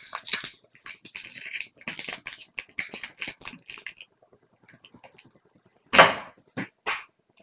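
Homemade popsicle-stick catapult bound with tape being tested: a run of rapid clicks and creaks as the stick arm is handled and drawn back, then a loud sharp snap about six seconds in as the arm is let go, followed by two smaller knocks.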